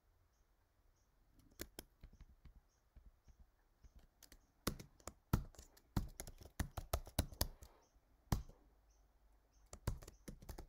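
Typing on a computer keyboard: scattered key clicks at first, then a quicker run of keystrokes from about halfway through.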